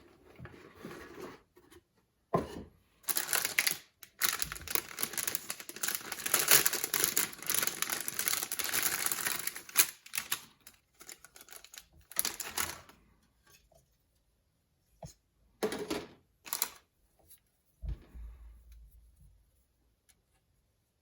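Packaging of a plastic scale-model kit being handled and opened: cardboard and plastic rustling and crinkling with small clicks. It comes in bursts, a long dense stretch through the first half and shorter bursts with quiet gaps later.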